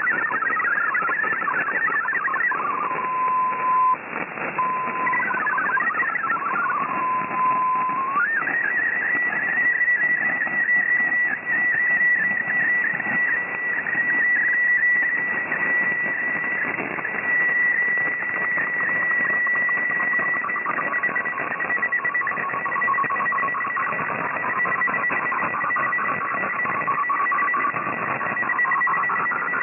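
MFSK64 digital text-and-image signal received on shortwave through a single-sideband receiver, over static hiss. A warble of quickly stepping tones is broken for a few seconds by a steady lower tone. From about eight seconds in comes the picture transmission: a held high tone with fainter wavering tones beneath it.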